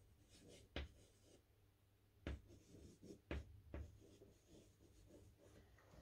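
Chalk writing on a blackboard, faint: a few short sharp taps as strokes start, with light scratching between them.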